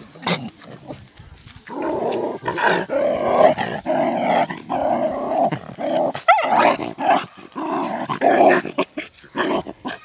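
Small dog growling and barking in long runs with short breaks, starting about two seconds in, with a brief high yelp about six seconds in.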